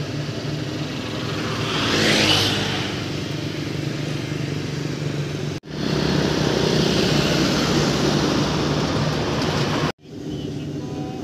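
Rice harvesting machine's engine running steadily, with a rushing swell about two seconds in. The sound drops out abruptly twice, about halfway and near the end, and is louder between the two dropouts.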